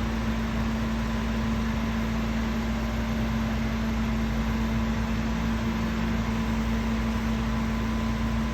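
Concrete mixer running steadily during a footer pour: a constant engine drone with a steady hum.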